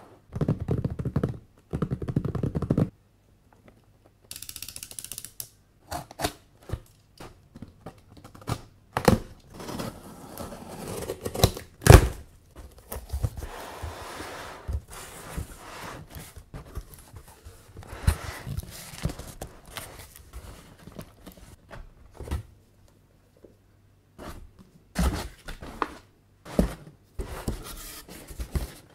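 Packing tape ripping and peeling off a cardboard box, with the loudest rasps at the start, then many knocks and taps of hands on the cardboard as the flaps are opened. One sharp thunk about twelve seconds in. Crumpled paper packing rustles and crinkles near the end.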